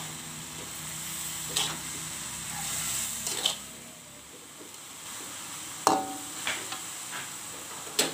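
Genjer (yellow velvetleaf) greens sizzling as they are stir-fried in a wok, with a metal spatula scraping and clacking against the pan about six times.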